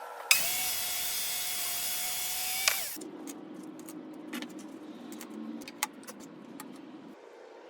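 A power tool runs at a steady pitch for about two and a half seconds, starting and stopping abruptly. Afterwards there are a few light clicks and taps.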